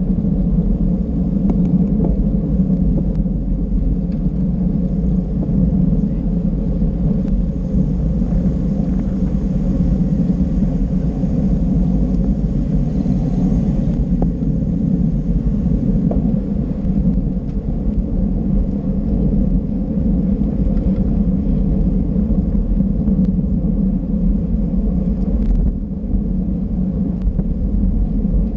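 Steady low wind rumble buffeting the microphone of a camera riding on a bicycle at race speed.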